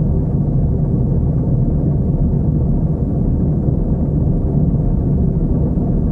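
Car wash heard from inside the vehicle's cabin: a steady, muffled low rumble with almost no high end.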